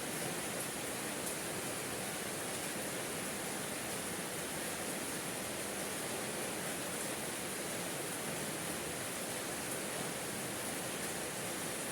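Steady rain falling: an even, unbroken hiss with a few faint ticks.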